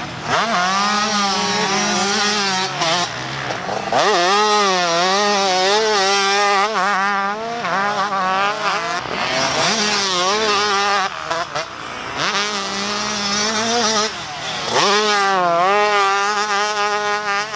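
Two-stroke motocross dirt bike engine revving hard, its pitch repeatedly climbing and dropping as the throttle is worked and the gears change, with a couple of long rising pulls.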